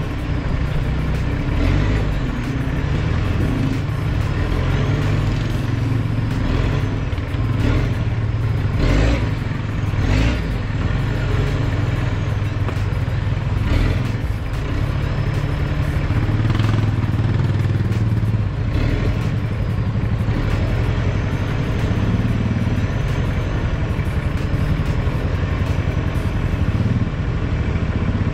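Toyota Hilux Surf's 2L-TE turbo diesel running with a steady low drone while the truck drives along a rough dirt trail, heard from inside the cab. Occasional sharp knocks and clatters come from the truck working over the bumps.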